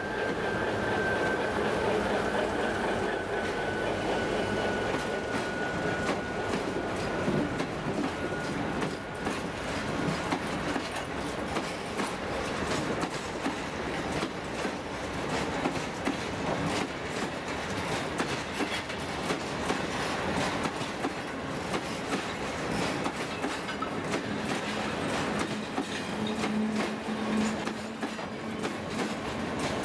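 Freight train of tank wagons hauled by a TEM2 diesel locomotive rolling past close by, its wheels clicking steadily over the rail joints with a continuous rumble. A thin high whine falls slightly and fades out over the first several seconds.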